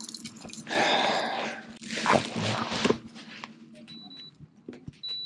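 Electric trolling motor humming steadily, fading out about three seconds in, with two loud rushes of noise in the first three seconds. Near the end the motor's handheld remote gives two short high beeps.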